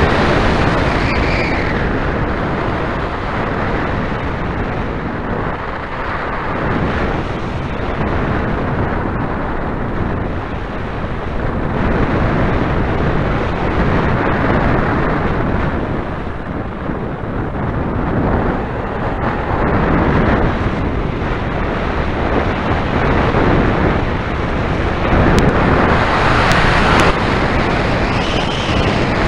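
Airflow rushing over a hang glider's onboard camera microphone in flight: a loud, steady rush that swells and eases, loudest near the end.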